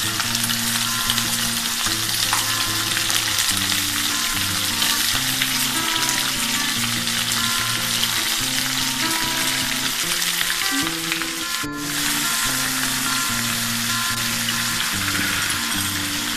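Goat meat pieces sizzling as they fry in hot oil in a black kadhai, a dense steady hiss. Background music with slow low notes plays underneath, and the sizzle cuts out briefly about twelve seconds in.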